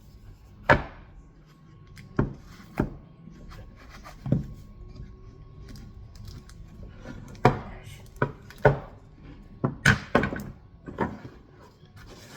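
A Spanish cedar cigar box and the cigar inside it being handled: about ten separate wooden knocks and taps at irregular intervals, several of them bunched together in the second half.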